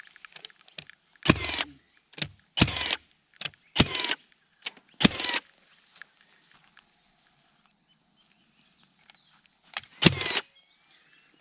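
Milwaukee cordless fencing stapler firing staples into a hardwood fence post: four sharp shots about a second apart, then another after a pause near the end. The 40 mm staples are being driven fully home.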